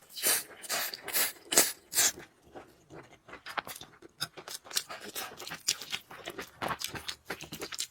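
Close-miked eating sounds: noodles and food being chewed, with a quick irregular run of short wet smacks and crunches.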